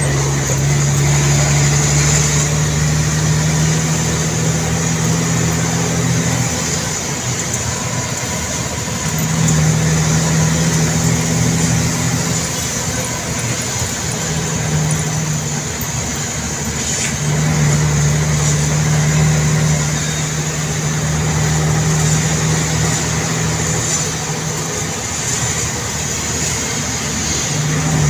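Engine drone heard from inside a moving vehicle's cab in slow traffic. The low engine tone swells and eases in stretches of a few seconds, over steady road noise.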